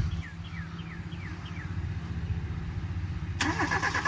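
A 1993 Mazda Miata's 1.6-litre four-cylinder engine idling steadily, with a train of high, falling chirps over it for the first second and a half. Near the end a louder, buzzy noise cuts in suddenly.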